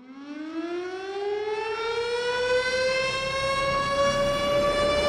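A siren winding up: one tone rising slowly from low pitch and growing louder, then levelling off at a steady high pitch.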